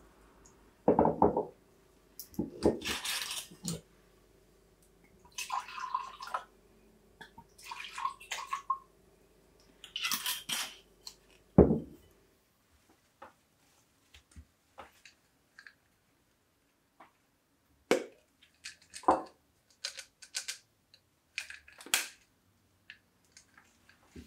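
White wine poured from a bottle into glass tumblers in several separate pours, splashing and trickling, with a thump on the wooden counter near the middle. Light clicks and taps of glass follow.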